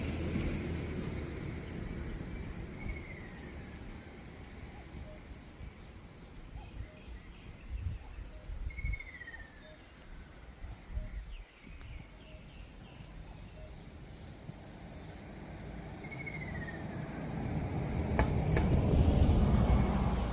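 Ruddy kingfisher calling: three separate descending trills, each about a second long and falling in pitch, spaced several seconds apart. A low rumble is heard under them, loudest at the start and swelling again near the end.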